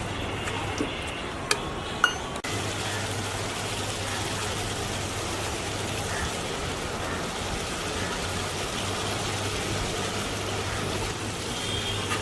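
Chicken masala frying in a pan: a steady sizzling hiss that comes in abruptly about two and a half seconds in, after a few light clicks.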